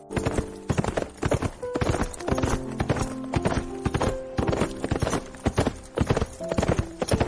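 Horse hooves clip-clopping in a fast, dense run of sharp knocks, several a second, over background music with held notes.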